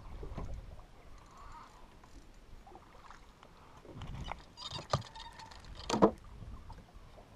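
Knocks and handling sounds in an aluminum fishing boat as a small fish on a jig is swung aboard. There are two sharp knocks, about five and six seconds in, and the second is the loudest.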